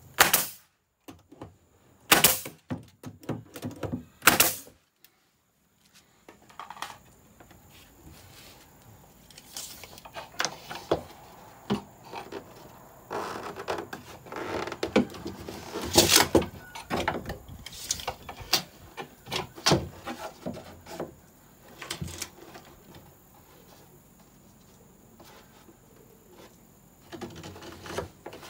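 A nail gun firing three times, about two seconds apart, as it drives nails through a wooden strip into plywood. After a short pause, scattered clicks and knocks of a tape measure and hands handling the wood follow.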